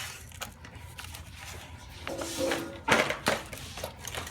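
Handling noise from a chainsaw being moved: two sharp knocks about three seconds in, with a brief low murmur just before them.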